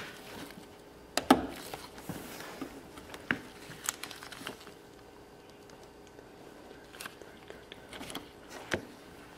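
Scattered small clicks and crunches of needle-nose pliers gripping and pulling a worn rubber brake-reservoir grommet out of the master cylinder port, the loudest about a second in.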